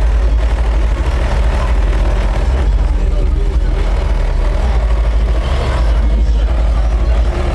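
Car audio system playing very loud, deep bass, the low notes changing a couple of times.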